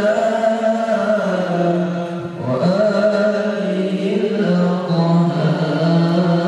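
A man's voice reciting the Qur'an in a long-drawn, melodic chant (tilawah) into a microphone and over a loudspeaker system, holding notes with wavering ornaments. He takes a brief breath about two seconds in and then goes on.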